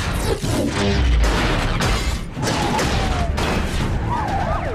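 Film car-chase sound effects: dense crashing and scraping metal from cars colliding at speed, with a deep boom about a second in.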